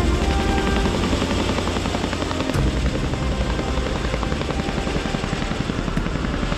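Chinook tandem-rotor helicopter in flight, its twin rotors chopping in a steady, rapid beat.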